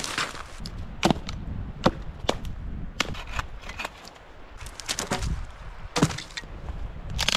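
Dry dead branches and twigs snapping as they are broken by hand and thrown onto a brush pile: a run of sharp cracks, about one a second, with rustling of twiggy brush between them.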